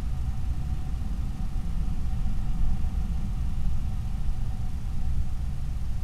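Steady low rumble with a faint, steady high whine over it.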